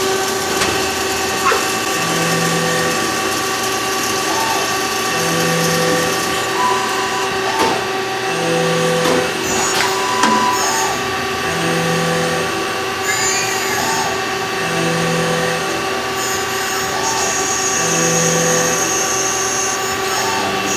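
CNC machine tool running: a steady mechanical hum with held tones, a low tone that comes and goes about every three seconds, and scattered clicks.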